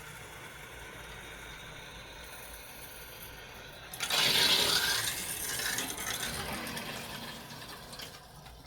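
Water rushing through a plumbing valve as it is opened slowly to fill the water heater's lines: a faint steady hiss, then about four seconds in a sudden louder rush of flowing water that tapers off.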